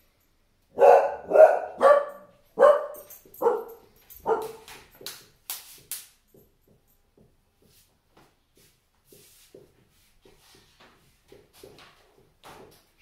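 A pet dog barking, about six loud barks in the first four or five seconds, followed by faint squeaks and taps of a dry-erase marker writing on a whiteboard.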